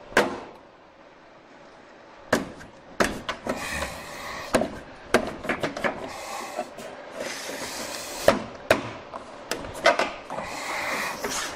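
Repeated sharp clicks and knocks, with stretches of scraping and rubbing, as an old pickup headlight assembly is worked and pried loose from a tight spot.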